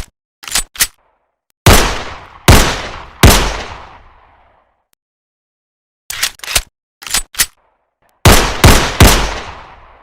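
9mm pistol: short metallic reloading clicks, then three shots about 0.8 s apart, each with a long echoing tail. About six seconds in come more reloading clicks and a faster string of three shots near the end.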